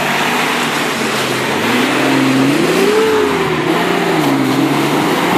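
Off-road vehicle's engine under load, revving up about two seconds in, then easing back and picking up again near the end, with a steady rushing noise underneath.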